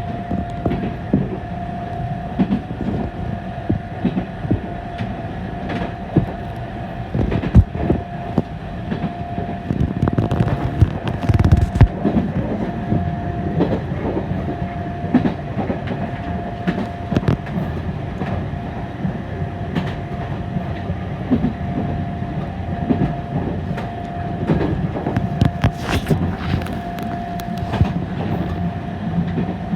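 Fukui Railway 770-type articulated tram heard from inside while running: a steady rumble and a steady whine, with irregular clatter and knocks from the wheels over the track, two of them heavier about a third of the way in.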